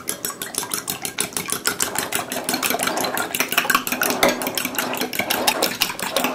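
Two eggs and milk being beaten by hand in a small ceramic bowl, the utensil clicking against the bowl fast and evenly, about six strokes a second. The eggs are beaten well to work a little air into them.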